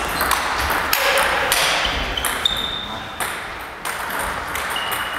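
Table tennis ball clicking off rubber bats and the table in a fast doubles rally, with a few short high squeaks.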